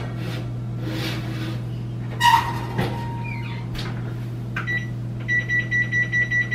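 A metal clank with a short ring as a baking sheet goes into the oven, then a click and an electronic oven timer beeping rapidly, about five high beeps a second, as the baking time is set.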